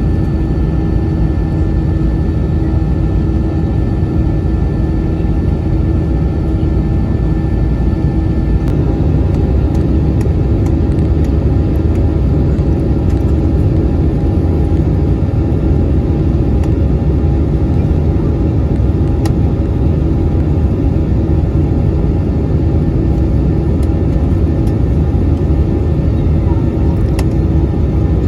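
Steady engine and airflow rumble inside the cabin of an Airbus A321-200 jet airliner, with a constant hum and a few faint clicks.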